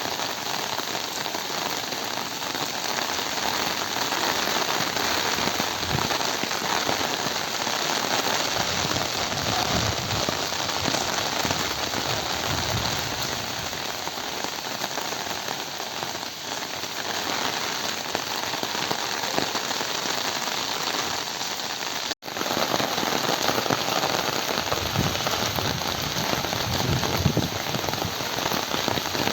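Steady rain falling, a dense even patter that briefly cuts out about three quarters of the way through, then resumes.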